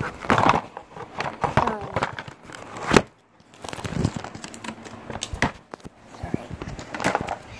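Handling noise of a phone being fumbled and turned over in the hand: irregular rubbing, crackling and knocks on the microphone. The loudest is one sharp knock about three seconds in, after which it goes briefly quiet.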